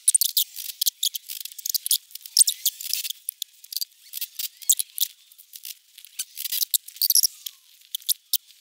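Makita 18V cordless impact wrench hammering on a Subaru EJ engine's camshaft pulley bolt, a rapid metallic clatter in bursts. It is densest for the first three seconds, then comes in shorter spurts. The bolt is very tight.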